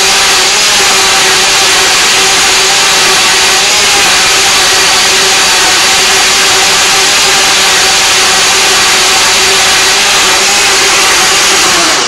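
Waring Margarita Madness blender motor running steadily at a constant pitch, churning a thick frozen fruit-and-oat mixture in its jar.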